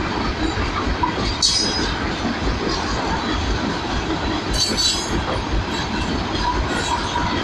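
Loaded open freight wagons rolling past on the track, their wheels making a steady low rumble on the rails. Two brief high-pitched wheel squeals cut through, about a second and a half in and again near five seconds.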